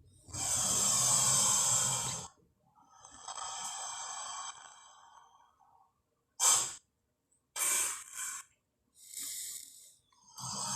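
Monster sound effects for a giant mutated crocodile: a long hissing breath, a softer, lower exhale, then a string of short snorts and hisses.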